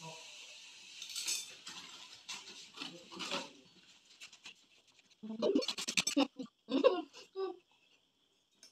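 Metal spoons scraping and scooping juicy watermelon flesh out of the rind, along with wet eating sounds. A louder cluster of scrapes and wet mouth noises comes from about five to seven and a half seconds in.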